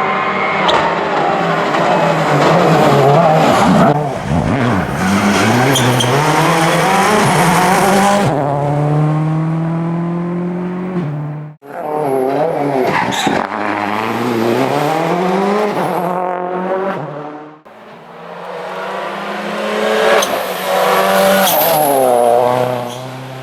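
Rally cars driven hard on a special stage, in three successive clips. Each engine revs up and drops back again and again through gear changes and corners, with some tyre squeal and a few sharp cracks from the exhaust.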